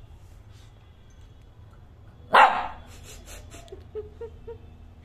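Shih Tzu puppy gives one sharp bark about two and a half seconds in, then a few short, faint whimpers: a puppy pestering someone to play.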